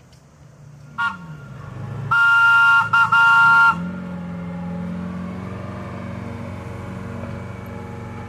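Horn of a diesel-converted St. Louis Car Co. streetcar sounding a chord: a short toot, then a longer blast broken by two brief gaps. After that the streetcar's diesel engine runs and revs up, then holds steady.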